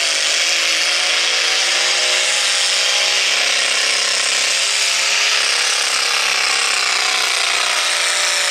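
Naturally aspirated pulling tractor engine at full throttle under heavy load as it drags a weight-transfer sled, running loud and steady at high revs with a slight waver in pitch.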